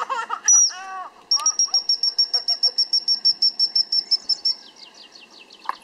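Dog whistle blown: one short high blast, then a fast run of short pips at the same pitch, about ten a second, for about three seconds, as a pip-pip recall signal to a dog. Birds chirp faintly in the background.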